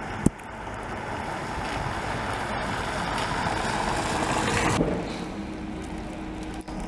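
Traffic on a slushy, snow-wet street: tyre hiss and engine noise of a passing vehicle that grows louder, cut off abruptly about five seconds in and followed by a quieter low engine hum from a city bus. A sharp click comes just after the start.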